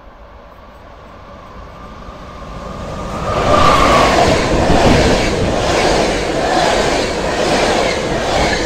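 Electric-hauled passenger train passing through a station at speed. It grows louder as it approaches, with a thin high tone over the first few seconds. About three seconds in it becomes a loud rush of wheels on rail with repeated clatter as the coaches go by.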